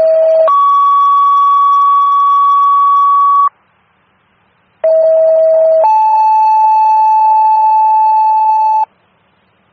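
Two sets of two-tone sequential fire-alerting tones on a scanner radio. Each set is a short lower tone followed by a steady higher tone of about three seconds, and the second set ends on a lower pitch than the first. They page out fire companies ahead of a dispatch.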